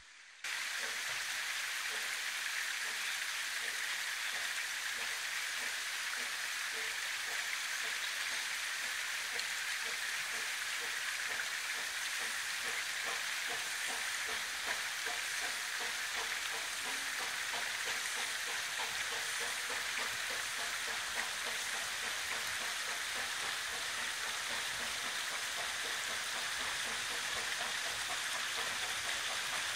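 Steady rushing of a stream, with the faint, regular exhaust beats of the Talyllyn Railway's steam locomotive Tom Rolt as it pulls its train away.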